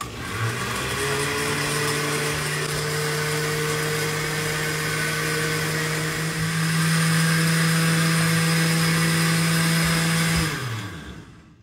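Countertop blender with a glass jar blending a banana, almond milk and protein powder shake. The motor spins up, runs steadily for about ten seconds, gets louder about six and a half seconds in, then winds down in pitch when switched off near the end.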